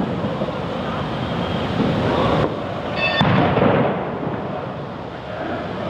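Fireworks going off in a dense, continuous rumble, with a sharp crack about three seconds in.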